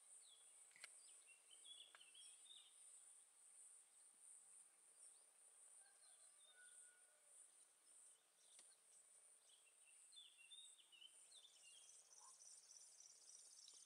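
Faint meadow ambience: a steady high insect trill throughout, with brief bursts of songbird chirping near the start and again about ten seconds in. A pulsing cricket-like chirping joins near the end.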